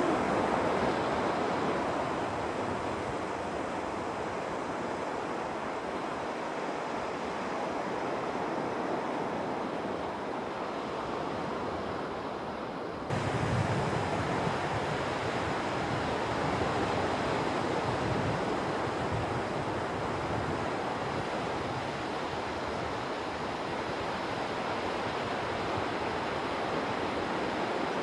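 Small waves breaking and washing up a sandy beach in a steady rush of surf, with some wind on the microphone. About 13 seconds in the sound steps up abruptly, slightly louder and with more low rumble.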